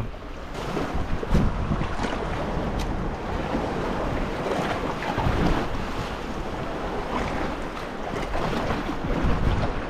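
Wind buffeting the microphone over waves washing on the shore, with a few faint clicks.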